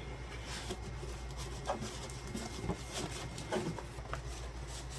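Diamond-painting canvas with its plastic cover sheet being rolled up by hand: a few soft, scattered rustles and crinkles over a steady low hum.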